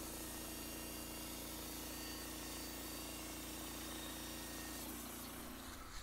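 Norwood LM29 portable bandsaw mill running steadily, its engine humming as the band blade cuts through a Virginia pine log.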